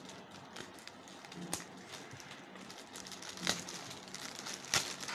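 Plastic courier mailer bag crinkling and crackling as it is handled and cut open with a small cutter, with louder crinkles about a second and a half, three and a half, and five seconds in.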